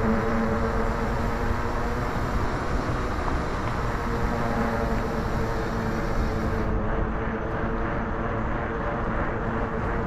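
Trek Farley 5's 5-inch fat tires humming on pavement at riding speed: a steady drone at an even pitch, over wind rushing across the microphone.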